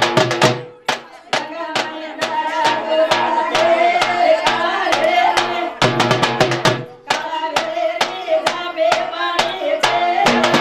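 Women singing a traditional Banjara wedding song (lagna geet) into microphones over a steady drum beat. The singing pauses briefly about a second in and again around six seconds, leaving the drum beat alone.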